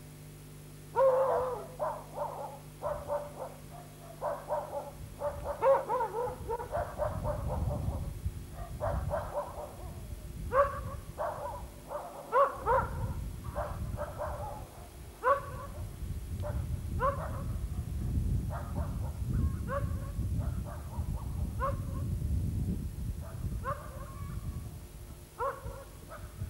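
A dog barking over and over, short barks about one or two a second, over a low rumble that grows heavier about seven seconds in.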